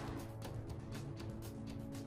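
Soft documentary background music: sustained low notes with light, repeated percussive ticks.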